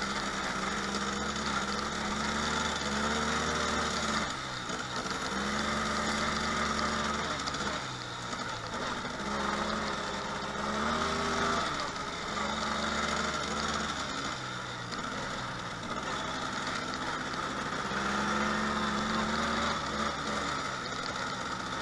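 ATV engine running under way, its pitch rising and falling again and again as the throttle is opened and eased off.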